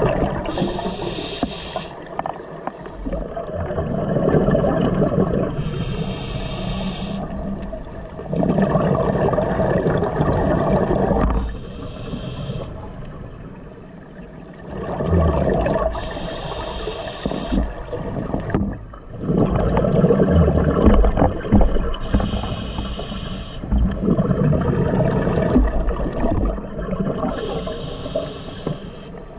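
Scuba diver breathing through a regulator underwater, heard through the camera housing. Each breath is a short hiss of inhalation followed by a longer gush of exhaled bubbles, repeating about every five seconds.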